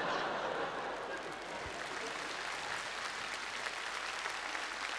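Studio audience laughing and applauding: the laughter is loudest at the start and gives way to steady applause.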